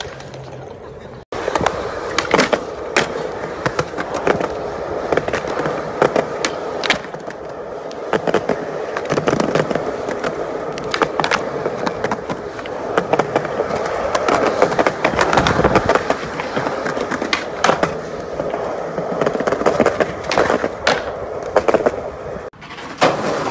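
Skateboard wheels rolling on concrete, with many sharp clacks as boards are popped and land on the ground.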